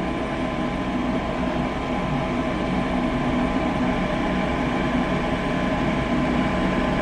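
Gas furnace's draft inducer motor humming steadily on a call for heat, with a thin high tone over it and no burner lighting. The furnace never fires because its Honeywell gas valve has shorted out.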